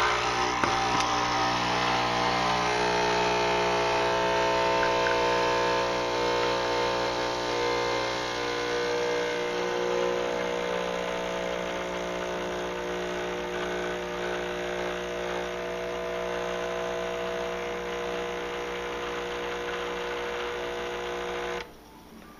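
Nespresso CitiZ D110's vibratory pump humming steadily as it brews an espresso through the capsule, a little louder over the first several seconds, then cutting off suddenly near the end when the shot is done.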